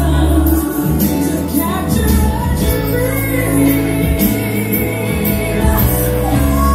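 Loud recorded pop music with a singing voice and a heavy bass line, playing over a club's speakers for a drag lip-sync performance.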